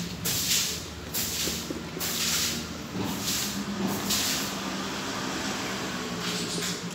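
Oyster mushroom pieces in a flour and cornstarch coating being shaken in a sealed plastic container to coat them. Each shake is a dry swishing rush, several shakes at irregular intervals.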